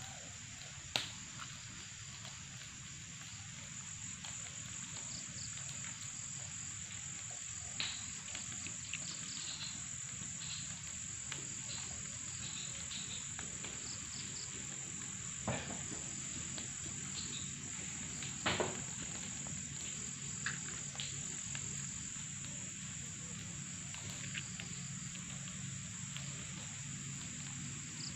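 Dusk insect chorus: a steady, high, continuous chirring, with a few sharp snaps now and then.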